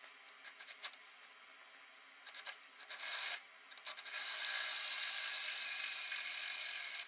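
Welding on a truck's steel rocker panel: a few short sputtering tacks, then a steady crackling bead for about three seconds that stops abruptly near the end.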